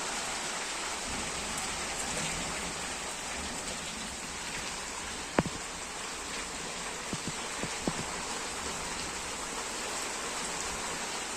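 Rain falling steadily. A few sharp taps cut through it: one about five seconds in is the loudest, and a handful of fainter ones follow a couple of seconds later.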